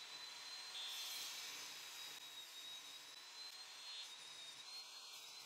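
Bosch GTS254 table saw running and ripping a thin pine strip, heard faintly as a steady high whine with hiss.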